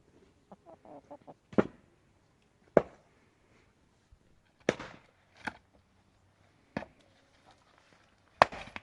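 A series of six sharp knocks or blows, irregularly spaced one to two seconds apart, with a few softer knocks before the first one.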